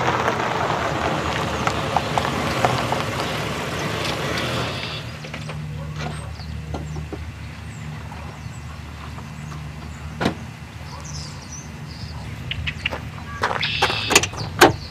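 A Jeep Grand Cherokee drives up with a loud rush of noise that drops off after about four and a half seconds, leaving the engine idling with a steady low hum. Near the end, a cluster of clicks and knocks comes from the rear liftgate latch being worked open.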